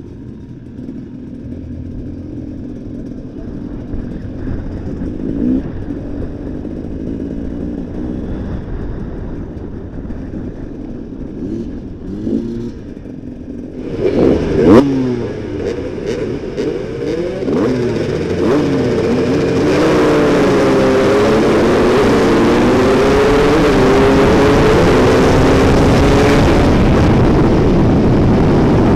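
Dirt-bike engines running and blipping among a crowd for the first half, with a sharp bang about halfway through. Then the rider's own enduro motorcycle engine revs up and down hard through the gears at racing speed, loud and steady.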